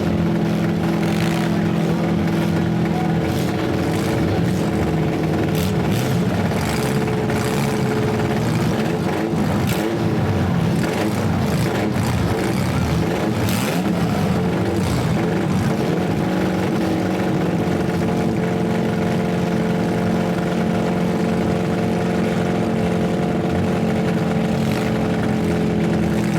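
Compact car engines revving hard in a demolition derby, held at high revs, with several sharp bangs of cars smashing into each other.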